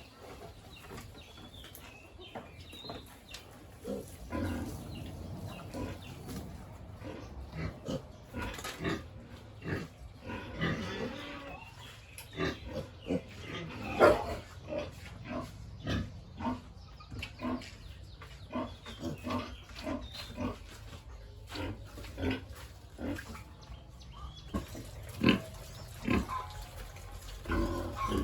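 Pigs grunting: many short grunts in quick succession, one every second or so, with a louder one about halfway through.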